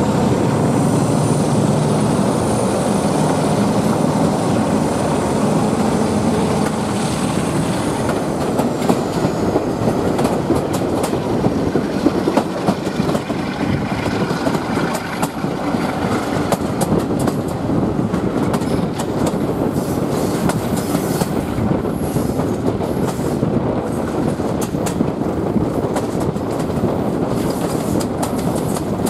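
Passenger train running along the track, heard from an open carriage window: a steady rumble of wheels and rushing air. For the first eight seconds a thin high wheel squeal sounds as the train rounds a curve, then dies away. After that, sharp clicks of the wheels passing over rail joints.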